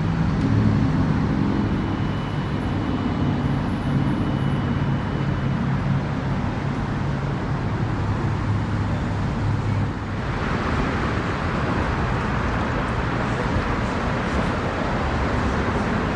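Engine running at a steady low idle hum. About ten seconds in, a louder steady rushing noise takes over.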